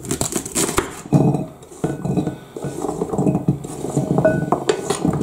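Chef's knife chopping carrots on a cutting board in a rapid series of knock-like strokes, then the pieces scraped off the board into a crock pot with a short ringing clink near the end.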